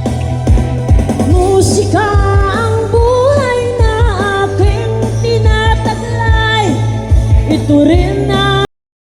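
A pop song with a sung melody, heavy bass and a steady kick drum, played loud through a rental PA sound system for a sound check. It cuts off suddenly near the end.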